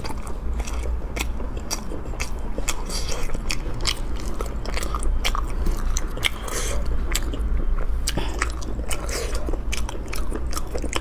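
Close-miked eating: a person biting and chewing braised food, with many sharp, irregular wet clicks and smacks of the mouth.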